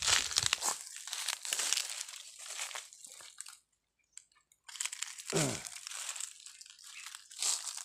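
Footsteps crunching through dry fallen leaves and twigs on a forest floor, stopping for about a second midway, with a short falling tone about five seconds in.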